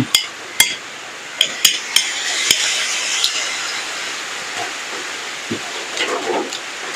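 A metal spoon clinking and scraping against a plate: about six sharp clinks in the first two and a half seconds, then softer scraping and handling noise.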